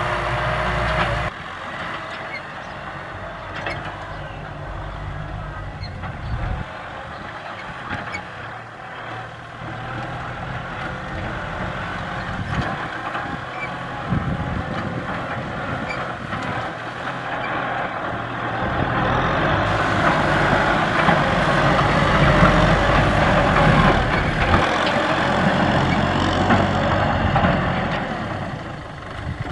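Tractor engines running hard. The sound changes abruptly about a second in and again around six seconds, then grows louder in the second half before easing near the end.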